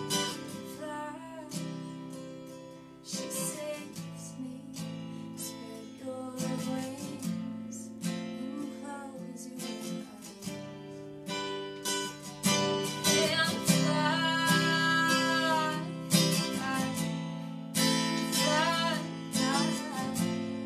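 Acoustic guitar strummed with a woman singing along, her voice strongest in the second half.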